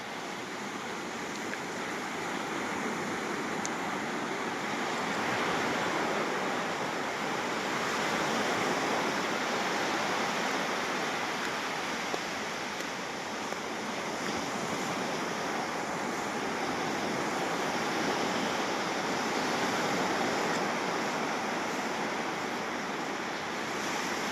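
Sea surf washing onto a beach: a steady rush of waves that swells and eases slowly.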